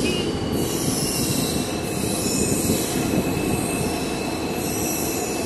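Moving train heard from on board: a steady rumble of wheels on the rails, with a faint high squeal of the wheels held underneath.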